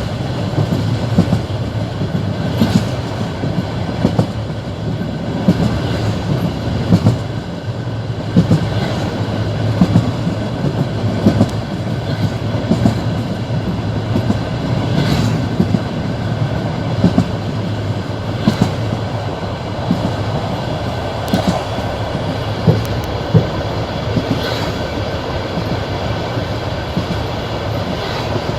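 Passenger train's wheels clicking over rail joints as it runs along, with a steady rumble of the moving carriage and a sharp clack about every one and a half seconds.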